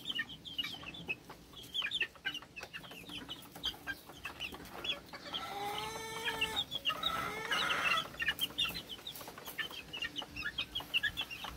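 A pen of one-month-old Sweater gamefowl chicks peeping: many short, high peeps. Twice, between about five and eight seconds in, a longer and lower chicken call rises above the peeping.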